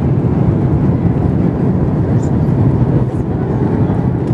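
Steady low roar of an Airbus airliner's jet engines and rushing air, heard inside the passenger cabin during the descent on approach to landing.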